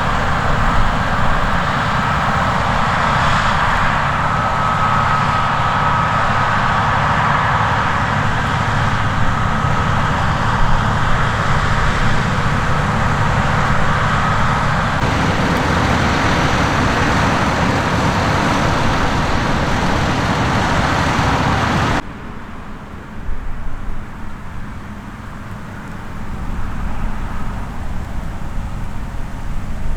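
Large farm harvest machinery running steadily under load, a dense engine drone. About two-thirds of the way in the sound drops suddenly to a quieter, duller machine sound, which grows louder again near the end.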